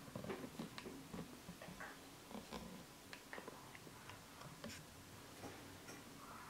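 Faint, scattered small clicks and taps in a quiet room, beginning with a paintbrush being rinsed and tapped in a glass of water.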